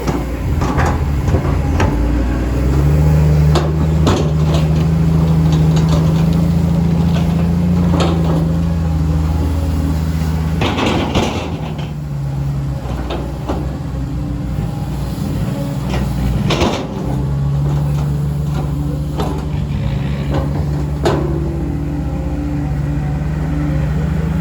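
Caterpillar 320D2 GC excavator's diesel engine working under load while digging. It rises in pitch a couple of seconds in, eases off around the middle, then loads up again, with occasional knocks and clanks over it.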